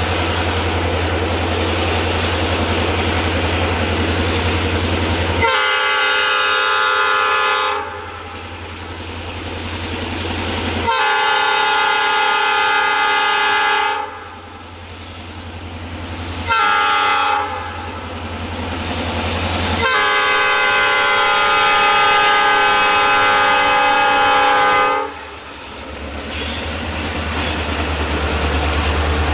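Diesel freight locomotive blowing its horn in the grade-crossing pattern: long, long, short, long, the last blast the longest. A steady low engine rumble is heard alone before the first blast and again after the horn stops.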